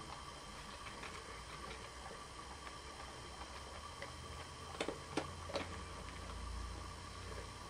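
A dog nosing along the carpet right by the microphone: faint scattered ticks, three sharp clicks in quick succession about five seconds in, and a low rumble near the end, over a steady faint hum.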